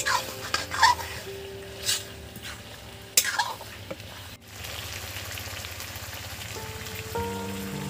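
Chicken gizzards in onion masala sizzling as they are stirred and dry-fried down over high heat in a black kadai. A metal spatula scrapes and knocks against the pan several times in the first few seconds.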